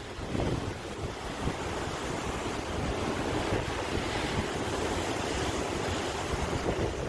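Sea waves surging and washing in a continuous surf, slowly building in level, with wind buffeting the microphone.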